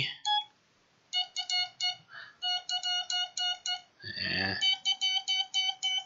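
MFJ-557 Morse code practice oscillator sounding its buzzy tone in runs of short, evenly spaced beeps as its straight key is tapped. The pitch is set a little higher for the last run.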